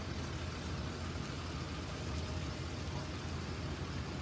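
Steady engine and road rumble of a moving vehicle, an even low drone with no change in pitch.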